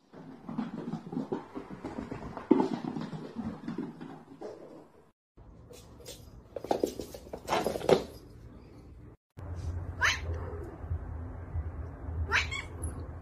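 House cats meowing and yowling in short, separate outbursts: a run of calls in the first few seconds, two loud calls in the middle, and two short high calls falling in pitch near the end over a steady low hum.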